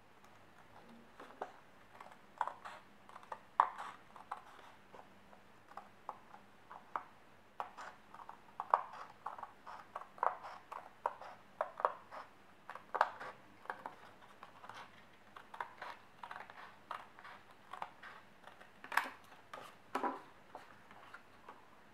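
Scissors cutting through a sheet of paper: a long run of short, sharp snips, roughly one or two a second, with a couple of louder cuts near the end.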